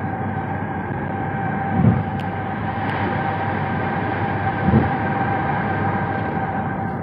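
Steady road and wind noise inside a car travelling at highway speed, with two short low thumps about two and five seconds in.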